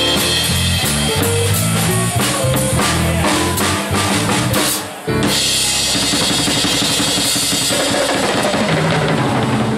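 Drum kit and digital stage piano playing swing jazz live. The music breaks briefly about halfway through, then picks up again with the drums and cymbals to the fore.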